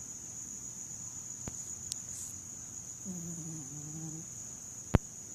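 A sleeping woman snoring: one low, voiced snoring breath of about a second, starting about three seconds in, over a constant high-pitched whine. A few small clicks, and one sharp, loud click near the end.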